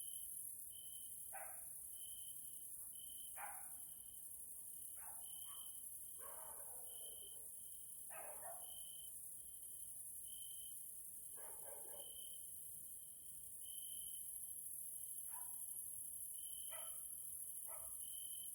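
Evening chorus of grasshoppers: a steady, high-pitched chirring, with a short chirp repeating about every 0.7 s. A dog barks faintly about nine times, on and off.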